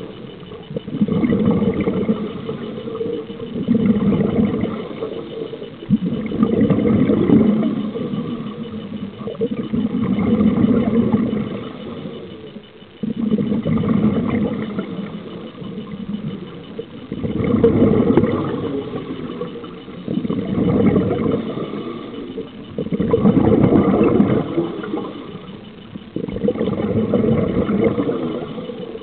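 Scuba diver breathing through a regulator, heard underwater: a burst of exhaled bubbles about every three seconds, each swelling and fading.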